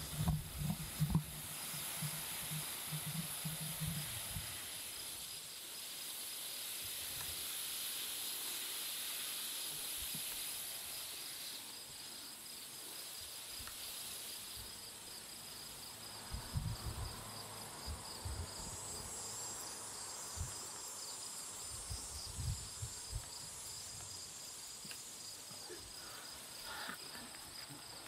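Crickets or other insects trilling steadily as a fast, even pulsing. A soft hiss swells and fades over the first half. Low thumps and rustles come near the start and a few times later, fitting hands working through loose garden soil in a potato bed.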